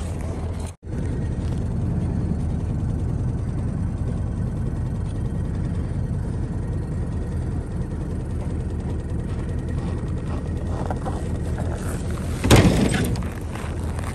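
Truck engine idling steadily, with a brief loud noise about twelve seconds in.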